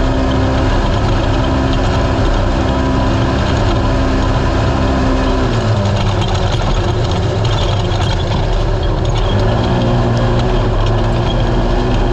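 Naturally aspirated UTV race car engine running steadily under load. Its pitch drops about halfway through and climbs back a few seconds later.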